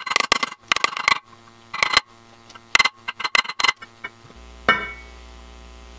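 Hammer tapping a steel socket used as a driver to push a new sealed wheel bearing into a Yamaha XJ650 Maxim wheel hub. Quick runs of ringing metal-on-metal taps, then a single clank about four and a half seconds in.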